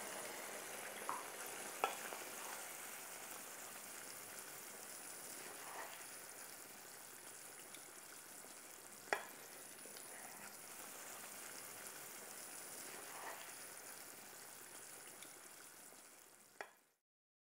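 Chicken curry sizzling gently in the pan: a steady faint hiss with a few sharp clicks, fading slowly and cutting off shortly before the end.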